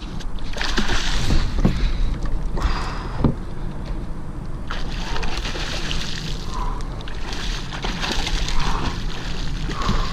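A hooked juvenile tarpon splashing at the water's surface during the fight, in bouts of splashing noise, over a steady low rumble.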